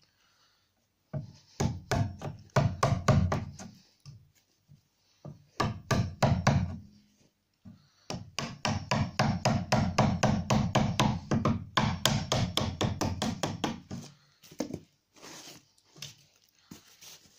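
A chisel struck with rapid light hammer taps, chopping out a shallow notch in a timber cupboard frame. The taps come in three runs, the longest lasting several seconds in the middle, with a few scattered taps near the end.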